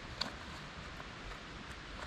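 A hiking backpack being handled and adjusted: fabric rustling with a short click about a quarter second in and a few faint ticks.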